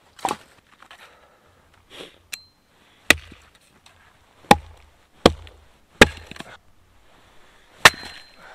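Hatchet chopping firewood into kindling on a chopping log: a lighter strike near the start, then five hard, sharp chops at uneven intervals from about three seconds in.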